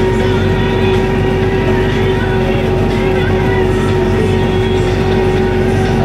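Belarus 952.3 tractor's diesel engine running steadily under load while pulling a mounted plough through the soil, heard from inside the cab.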